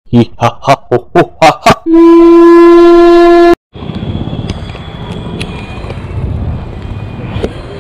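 Seven short loud hoots in quick succession, about four a second, then a long steady horn-like blast that cuts off sharply; after a brief gap, steady street noise with small clicks and knocks.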